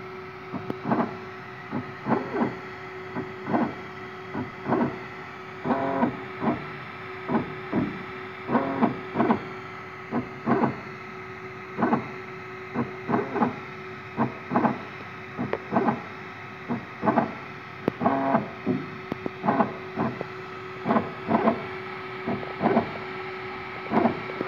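Desktop diode laser engraver's stepper motors whirring in short, irregular moves as the laser head traces text, over a steady hum.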